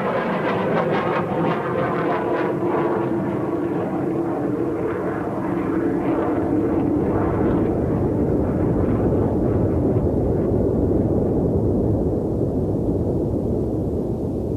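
Rockwell B-1B bomber's four jet engines as it flies low past, a continuous jet rumble and hiss. The higher hiss fades over the last few seconds as the bomber moves away.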